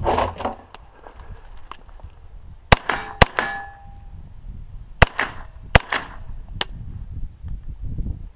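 A brief clatter as a rifle is drawn from a plastic barrel, then five rifle shots fired in two quick strings, two and then three. After the second shot a faint metallic ring follows from a struck steel target.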